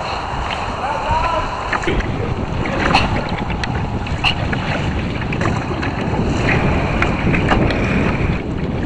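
Wind buffeting the microphone over choppy water slapping against a fishing kayak's hull, with scattered small splashes and knocks.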